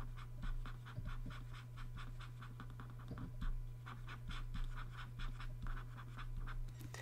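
Pen stylus scratching over a graphics tablet in quick small circles, a rapid run of light, rhythmic scratches several a second, over a steady low hum.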